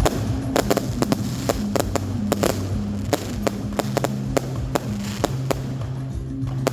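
Fireworks going off in an irregular string of sharp bangs, two or three a second, with music playing underneath.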